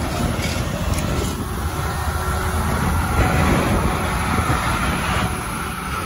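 Putzmeister 58-meter concrete boom pump truck running steadily and hard under load while pumping concrete, a continuous low diesel rumble.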